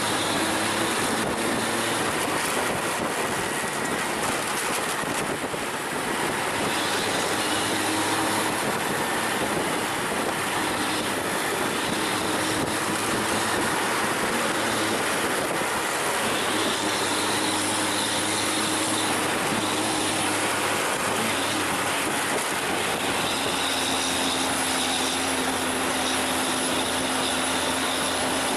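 A vehicle's engine running under load with dense road and wind noise. The engine note holds level for a few seconds at a time, then shifts.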